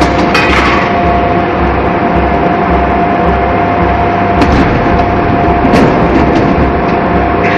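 Forge shop machinery running loud and steady: a constant hum over a low throb about twice a second, with a few short sharp knocks, about half a second in and twice more in the middle.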